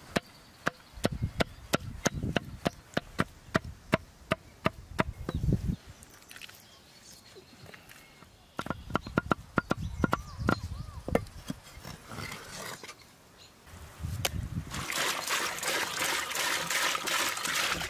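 Cleaver chopping raw chicken on a wooden board: a quick run of sharp knocks, then after a pause a second run of chops. Near the end, water pouring from a plastic jug onto potatoes in a metal pot.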